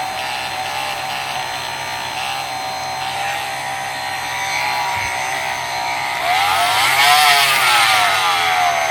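Milwaukee C12 MT 12-volt cordless oscillating multi-tool running, a steady high-pitched motor whine. About six seconds in it gets louder and its pitch rises and then falls back.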